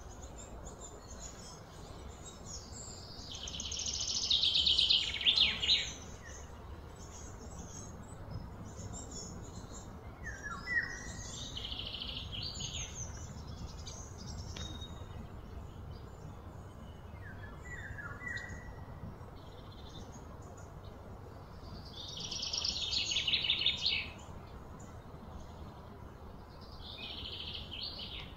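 Small birds chirping, with short calls that glide downward. Two louder, rapid pulsing trills stand out: one a few seconds in and one past the twenty-second mark. A steady low background hum lies underneath.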